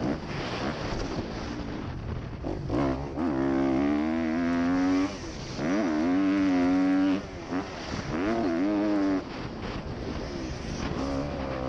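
Motocross dirt bike engine revving hard as it is ridden around a dirt track. The pitch climbs, holds high, then drops as the throttle closes or it shifts, several times over.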